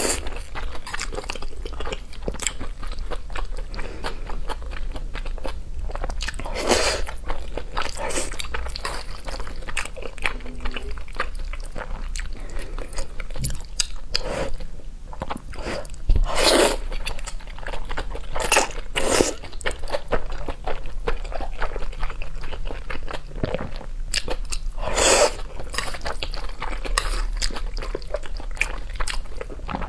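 Mouth sounds of eating wide, flat stir-fried noodles: steady wet chewing and smacking, with a few louder slurps of noodles, about four in all.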